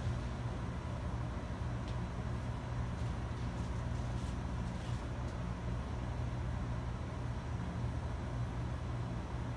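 Steady room tone of running computer and network equipment: a constant low hum with fan-like noise and a few faint clicks.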